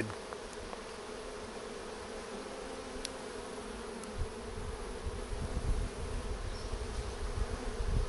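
Honey bees from a fallen wild colony buzzing as a steady mass hum over the exposed comb, with low rumbling noise on the microphone growing in the second half.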